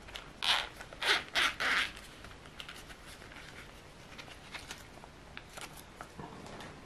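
Zipper on a small round zippered speaker case being pulled open in four quick rasping strokes, followed by light clicks and handling noises as the case is worked open.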